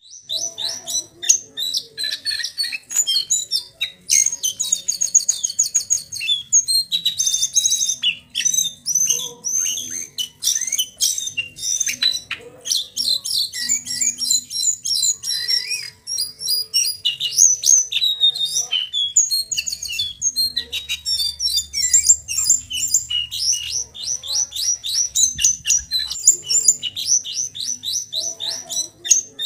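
Young male jongkangan coklat singing in a cage: a continuous run of high, rapidly repeated notes, fast rolling trills and whistled phrases with brief pauses. This is the practice song of a juvenile still learning to trill, chatter and whistle.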